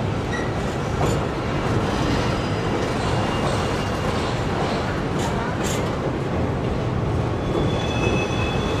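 Container freight train rolling across a steel truss railroad bridge: a steady rumble of wheels on rail, with thin high wheel squeal coming in near the end.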